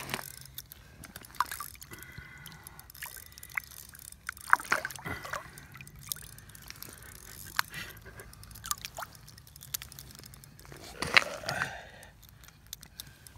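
Water splashing and sloshing in an ice-fishing hole as a hand reaches in and a hooked lake trout thrashes at the surface. The splashes come irregularly, the loudest about four and a half seconds in and again near eleven seconds.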